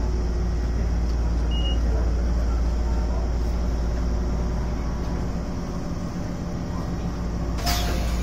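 Mizuma Railway 1000 series electric train running along the line, heard from the driver's cab as a steady low rumble of motors and wheels on the rails. A short burst of hiss comes near the end.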